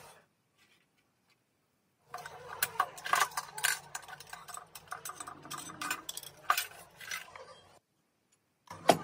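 Irregular clinks and scrapes of metal on metal as Holset turbocharger parts are scrubbed and handled in a steel wash basin. The sounds start about two seconds in and stop near the end, with one short clatter right at the end.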